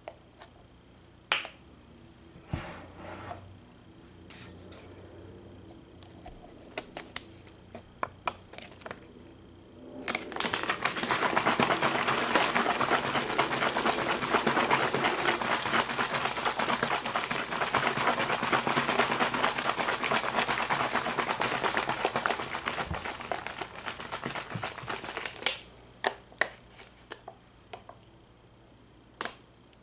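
A thin plastic water bottle being squeezed and crinkled. It makes a dense crackling that starts suddenly about a third of the way in and stops about fifteen seconds later. Before and after it come scattered light clicks and taps.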